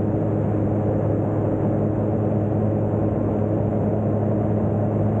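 Experimental light aircraft's engine and propeller droning steadily in flight, with the rush of air over the airframe, picked up by a camera mounted on the aircraft.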